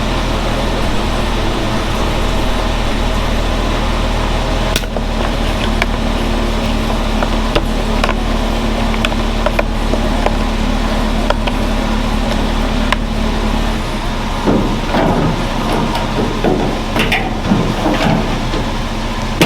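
Engine idling steadily, with scattered sharp clicks and knocks; the steady hum shifts about 14 seconds in.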